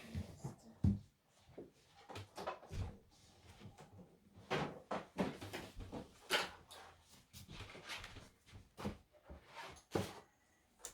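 Irregular light knocks, clicks and clatters of small objects being handled and set down.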